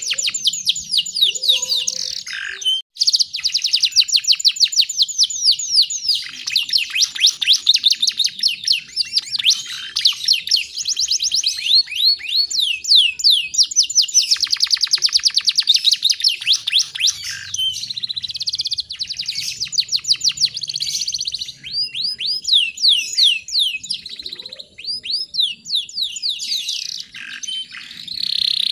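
Canary singing in long, fast trills of rapidly repeated down-slurred notes, broken by short pauses, one of them about three seconds in.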